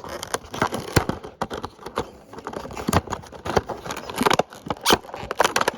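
Earbud box being ripped open by hand: a run of irregular tearing, crackling and snapping of the packaging.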